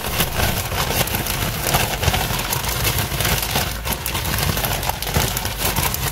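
Zip-top plastic bag being shaken hard, its plastic crinkling and rustling continuously as tofu pieces and seasoning tumble inside to coat them.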